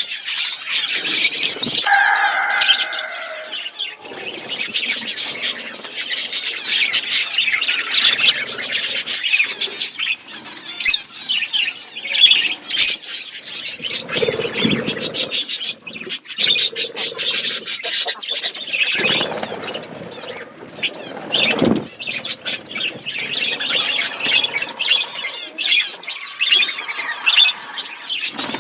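A flock of budgerigars chattering and chirping continuously, many small overlapping calls with an occasional louder squawk.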